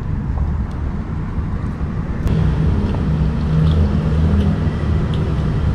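Steady low rumbling background noise, with a wavering hum and a few faint ticks.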